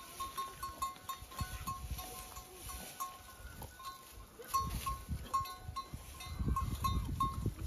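Goats in the background, with a short high note repeating about two or three times a second and low rustling noise growing louder in the second half.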